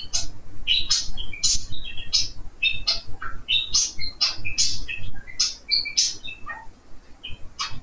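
Budgerigars chirping and warbling: a rapid run of short chirps that thins out near the end.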